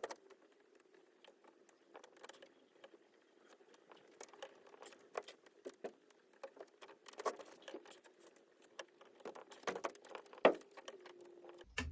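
Irregular small metallic clicks, taps and rattles of drill press parts being handled and fitted by hand, with one louder knock about ten and a half seconds in. A faint steady hum runs underneath.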